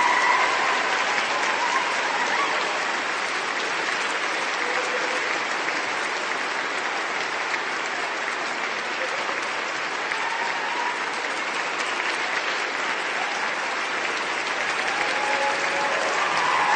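A large crowd applauding with dense, continuous clapping, easing slightly in the middle and swelling again near the end.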